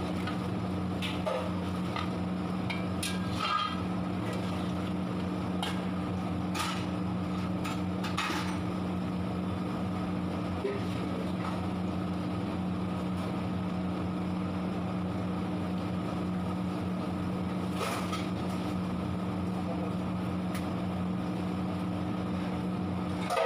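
Steady mechanical hum of kitchen machinery with a constant low drone, with a few scattered clicks and clinks.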